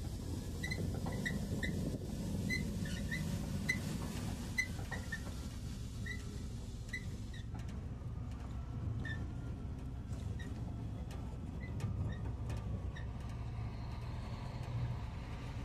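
Heavy truck's diesel engine running at low speed, heard from inside the cab as the truck is manoeuvred slowly. Over the steady low rumble come short high chirps, about one or two a second in the first half and sparser later, and scattered light clicks and rattles in the second half.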